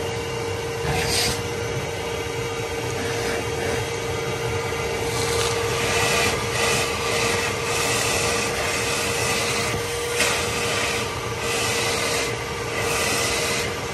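Shop vacuum running with a steady whine while its hose nozzle is worked over the cylinder bores and valve ports of a flathead V8 block, sucking out debris. Repeated louder bursts of rushing and scraping come as the nozzle rubs on the block and draws debris in.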